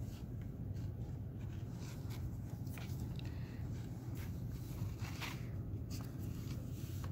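Paper being handled and folded on a journal page: scattered soft rustles and light taps, over a low steady hum.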